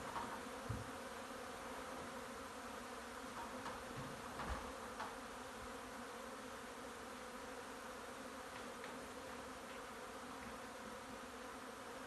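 A honey bee swarm in flight: the steady, many-voiced buzz of thousands of bees milling in the air.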